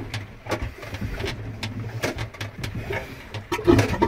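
Manual marine toilet hand pump worked by its lever, a run of strokes about two a second, pumping the excess water out of the bowl; the strokes grow louder near the end.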